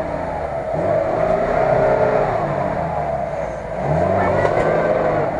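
Lada Niva's engine revving as the car churns forward through a deep mud rut, the revs swelling and falling back twice.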